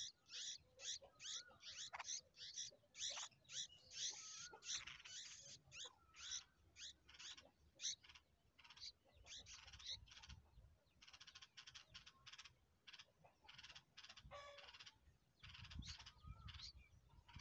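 Bulbul nestlings begging for food: a rapid series of short, harsh, high cheeps, several a second, running into a more continuous chatter past the middle. It is the hungry chicks' call for a feed.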